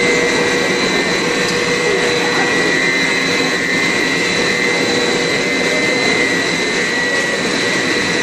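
Corn snack extrusion production line running: steady machinery noise with a constant high whine.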